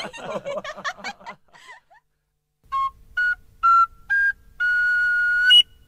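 A man's chuckling dies away, then a short flute-like whistle tune plays five notes, the last one held for about a second before it cuts off sharply.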